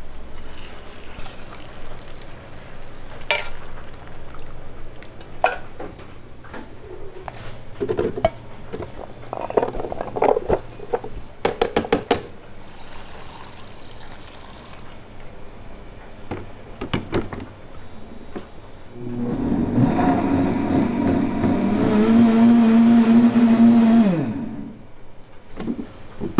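Scattered clicks and knocks of kitchen work, then a small electric motor appliance runs steadily for about five seconds and winds down in pitch as it stops.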